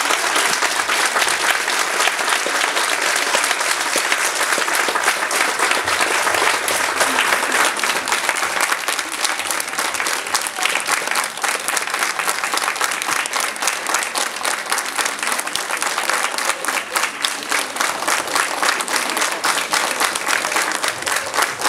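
Large audience applauding steadily in a theatre hall.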